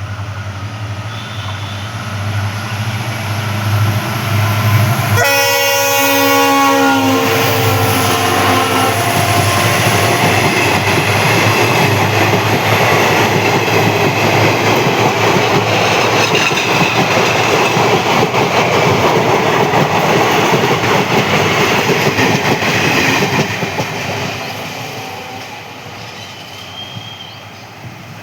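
WDG4D diesel locomotive approaching with its engine running, then sounding its multi-tone horn about five seconds in for roughly four seconds. The passenger train then passes close by with a loud, steady rumble of wheels and coaches, which fades over the last few seconds.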